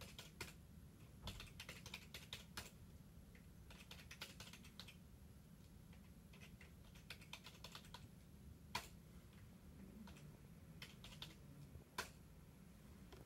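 Computer keyboard typing in several short bursts of quiet keystrokes, then two single, louder key clicks in the second half, over a faint low hum.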